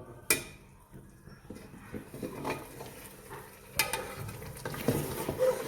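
Spoon stirring and scraping boiled beef trotters in masala in a cooking pot, with a few sharp clinks of the spoon against the pot, the loudest just after the start, over a light sizzle of frying.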